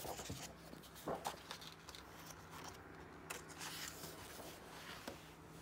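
A picture book being opened and its first pages turned by hand: faint paper rustling with a few soft clicks and taps.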